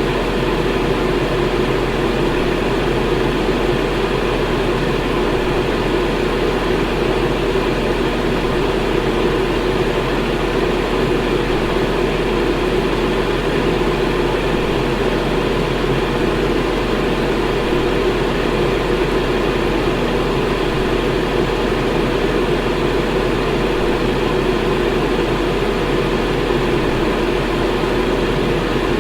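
Electric fan running steadily: an even, unchanging whoosh of moving air with a low hum underneath.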